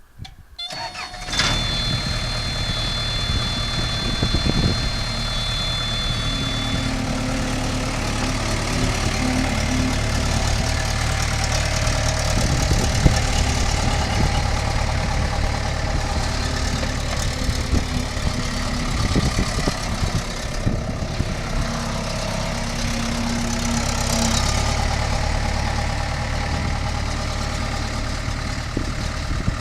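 1994 Case 1845C skid steer's four-cylinder diesel engine starting about a second in, then idling steadily. A high, steady tone sounds alongside it and stops about seven seconds in.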